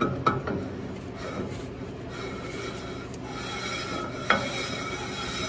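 Threaded companion flange being spun by hand onto freshly cut threads of a ductile iron pipe: a steady rasping of metal threads rubbing on metal. A sharp metallic click comes about a third of a second in and another at about four seconds, over a faint steady hum.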